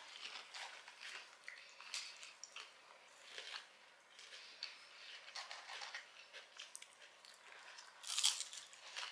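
A person chewing mouthfuls of curly fries close to the microphone, a run of short irregular mouth clicks and crunches, with a louder bite about eight seconds in.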